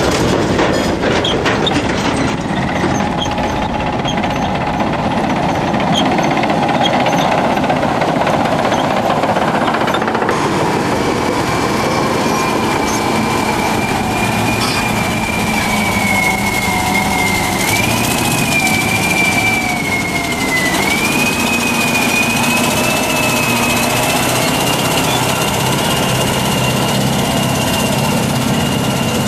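Caterpillar 631E wheel tractor-scrapers running their diesel engines as they drive over the dirt, with a high squealing whine that wavers up and down in pitch from about ten seconds in.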